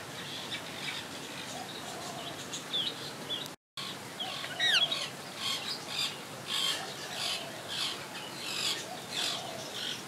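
Many birds chirping and calling together, mostly short high chirps, with a few sharp falling whistles about five seconds in. The sound drops out completely for a split second about three and a half seconds in.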